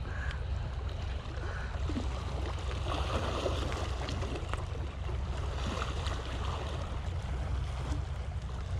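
Sea water lapping against a rocky shore under a steady low rumble of wind on the microphone, with a few faint clicks.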